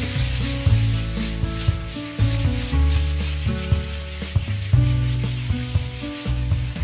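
A hand float rubbed in repeated strokes over fresh cement render, a scratchy rasp, as the render is floated smooth. Background music with a heavy bass line plays over it and is the loudest sound.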